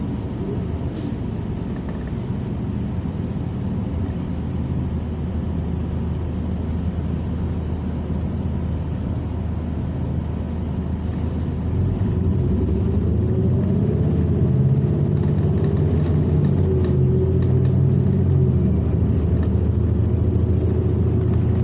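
New Flyer XN40 natural-gas city bus running, its engine and drivetrain drone heard from inside the bus. About halfway through the engine grows louder and its note rises and then holds as the bus accelerates.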